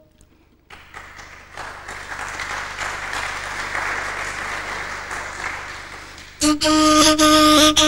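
Audience applauding for about five seconds. Then a Persian ney, the end-blown reed flute, comes in loudly on a held note, and a couple of sharp tombak strokes sound just before the end.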